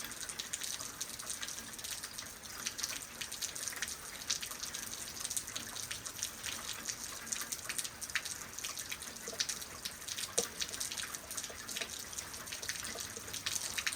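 Steady rain falling, with many close drops landing as sharp little ticks and splashes.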